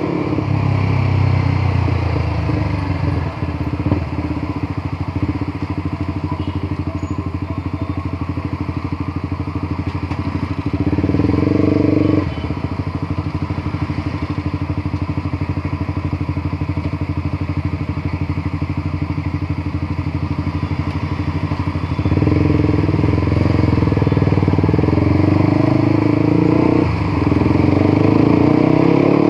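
Motorcycle engine running while riding, its note steady with revs rising and falling: it climbs about eleven seconds in, drops back a second later, then runs louder and higher from about two-thirds of the way through, with a brief dip near the end.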